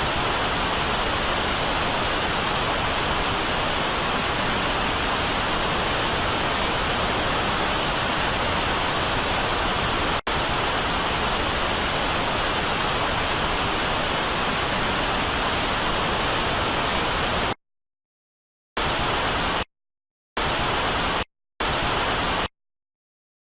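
Steady hiss of broadcast static, with a momentary dropout about ten seconds in. It cuts off suddenly after about seventeen seconds, then comes back as three short bursts, each under a second long.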